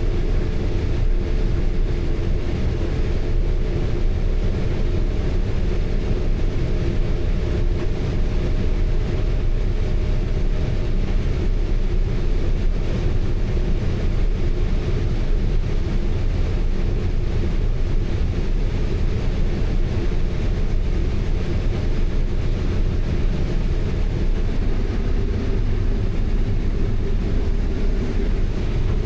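Heavy diesel engine running steadily under load, a constant low drone with a faint hum on top.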